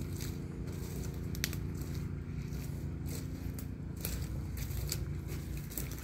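Footsteps crunching and crackling on dry leaves and twigs on a woodland dirt path, a scatter of sharp irregular clicks over a steady low hum.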